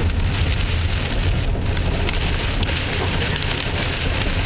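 Heavy rain and hail pelting the roof and windshield of a moving car, a dense run of fine ticks heard from inside the cabin. Under it runs a steady low rumble of the car's tyres on the wet, hail-covered road.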